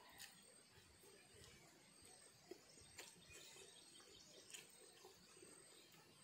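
Near silence: faint outdoor ambience with a few soft clicks.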